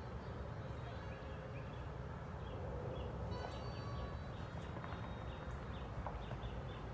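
Faint, short high chirps of small birds, scattered and thickest from about three seconds in, over a steady low background rumble.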